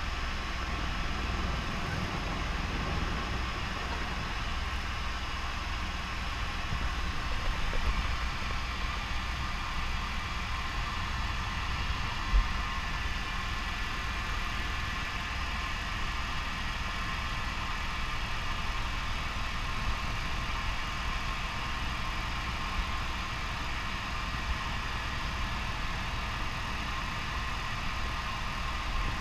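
Helicopter turbine engine and main rotor heard from inside the cabin, running steadily through takeoff and climb-out, with a steady whine over a low rumble. A single short knock about twelve seconds in.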